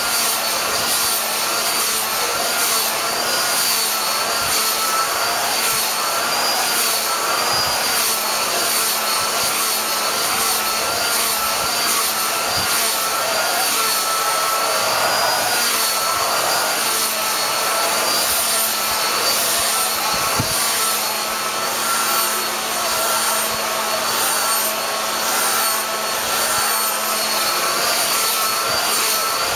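Handheld hair dryer running steadily on high: a constant rush of blown air with a faint, slightly wavering motor whine.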